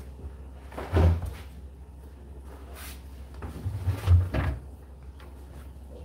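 Indesit IDC8T3 condenser tumble dryer running with a steady low hum, its load of clothes thudding in the drum as it tumbles: one heavy thud about a second in and a cluster of thuds around four seconds.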